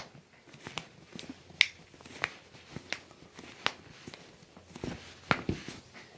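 Irregular sharp, light clicks and taps, about nine in six seconds: hands handling the patient's leg and foot on a chiropractic treatment table.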